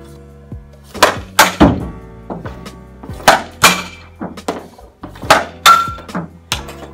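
Hockey shots taken with a Bauer 2N Pro composite stick off a plastic shooting pad: about three sharp stick-on-puck cracks, each quickly followed by a second hit as the puck strikes the net frame, one near the end ringing briefly like a crossbar ping. Background music plays underneath.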